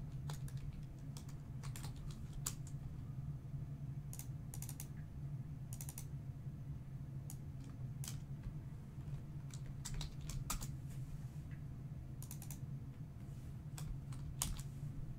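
Typing on a computer keyboard: scattered keystrokes, some in quick runs, over a steady low hum.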